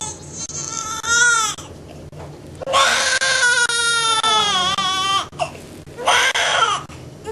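Newborn baby crying as it is handled: a few short wails, then one long wail of about two and a half seconds, and another short cry near the end.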